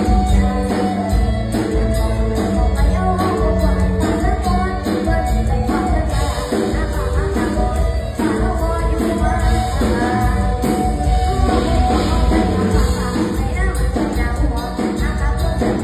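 Loud band music with a strong, regular beat and a voice singing over it.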